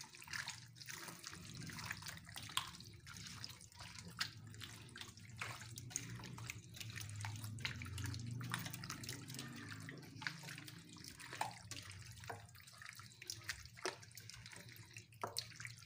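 A hand squishing raw chicken pieces through a thick yogurt-and-spice marinade in a bowl: an irregular run of wet squelches and splats over a low steady hum.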